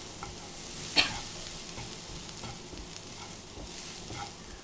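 Spatula stirring and scraping a ginger, garlic and green chilli paste with turmeric around a hot non-stick frying pan, the oil sizzling softly with the gas turned off. One sharp tap about a second in, and the sizzle dies down near the end.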